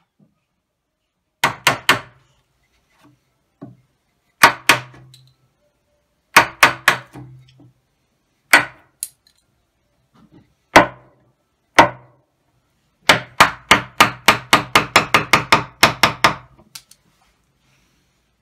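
Steel chisel being struck to chop out wood from the edge of a pine board: groups of sharp knocks with a short low ring, then a fast run of about four blows a second near the end.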